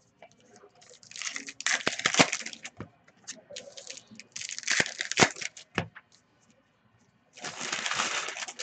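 Trading card pack wrappers being torn open and crinkled by hand: three bursts of crinkling noise with sharp clicks, the first about a second in, the last near the end.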